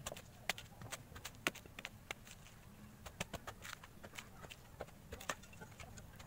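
Machete chopping the husk off a coconut: a string of irregular sharp chops as the blade bites into the fibrous husk. The loudest chop comes about a second and a half in.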